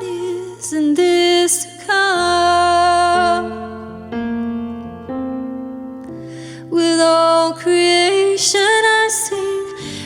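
Worship music: a singer's voice over sustained electric piano or keyboard chords, with the keyboard playing alone for a few seconds in the middle before the singing returns.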